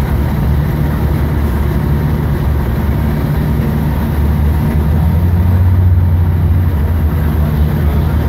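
Heavy diesel engine running steadily with a deep hum, the fire engine's motor driving its pump to feed the charged hose lines; it swells slightly about five seconds in.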